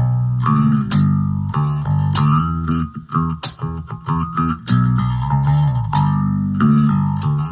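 Background music led by plucked guitar over a prominent bass line, with a steady rhythm and sharp picked notes.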